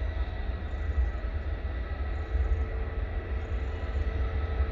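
Jet airliner engines running steadily: a low rumble under a thin, steady high whine, with no change in pitch.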